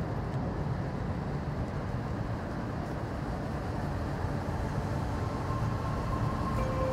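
Steady low rumble of a moving vehicle, with faint steady tones coming in near the end.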